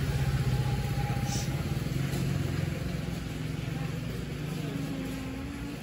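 A steady low motor hum with a slowly drifting pitch, with faint voices in the background.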